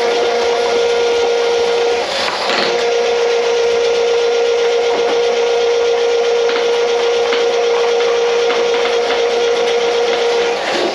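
A motor-driven machine running steadily: a constant hum over a noisy grinding layer. It falters briefly about two seconds in and again near the end.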